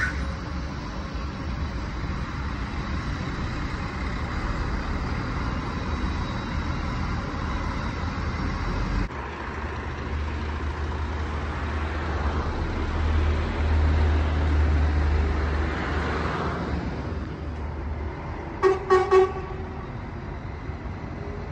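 Diesel semi-truck running as it tows a scrap metal tipper semitrailer, a low engine rumble that swells louder around the middle. Near the end the truck's horn gives three short toots.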